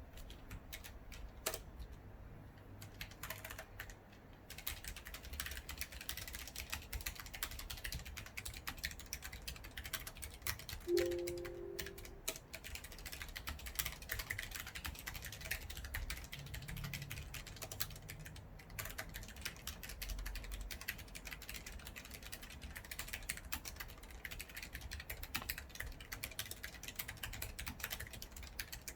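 Logitech G813 low-profile mechanical keyboard with GL Brown tactile switches being typed on: a few scattered key presses, then continuous fast typing from about four seconds in. A brief two-pitched tone sounds about eleven seconds in.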